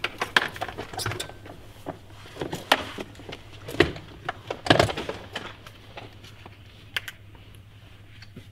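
Handling noises at a scooter: a run of irregular clicks and knocks with rustling as hands work at the handlebar and its padded handlebar mitt, the loudest knocks near the middle.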